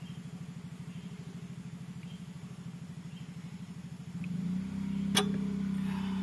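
A motor running steadily with a fast, even pulse, becoming louder and smoother about four seconds in. A single sharp metal clink of a ring spanner on a suspension bolt comes about five seconds in.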